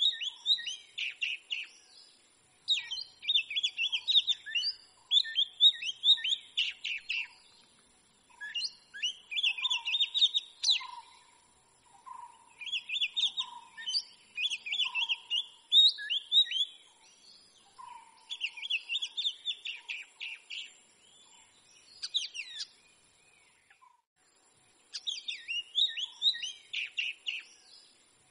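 Oriental magpie-robin singing: varied whistled phrases a couple of seconds long, repeated with short pauses between them and one longer pause near the end.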